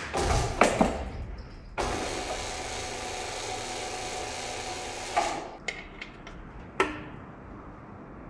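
Electric chain hoist motor running steadily for about three seconds, with sharp metal clanks and knocks before it and a few more after it.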